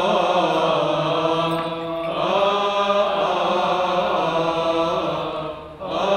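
Coptic liturgical chant: a man's voice drawing a single syllable out into a long, ornamented melisma. The line breaks briefly about two seconds in and again near the end.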